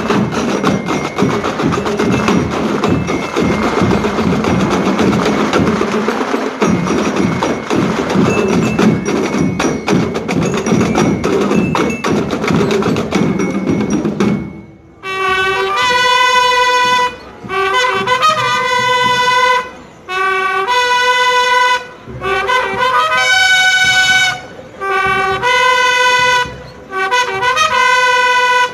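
School marching band: for about the first half the drum line plays a dense, fast rhythm on snare and bass drums; then the drums stop and the brass section plays long held notes in phrases with short breaks between them.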